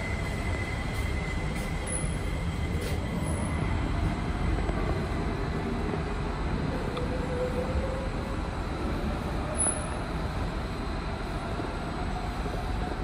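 An SMRT Kawasaki C151B metro train approaching along the elevated track, giving a steady rail rumble with faint thin tones over it.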